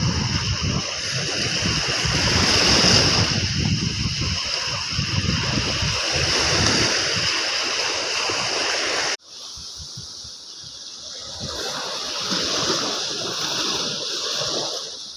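Sea surf washing on the beach, a steady rush of water with wind on the microphone. The sound drops suddenly about nine seconds in, then builds again.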